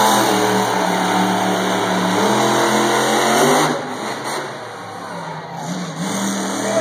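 Monster truck engine revving hard with a steady, heavy note. Just before four seconds in, the sound suddenly drops away as the truck goes up over a school bus, and it stays lower and rougher after that.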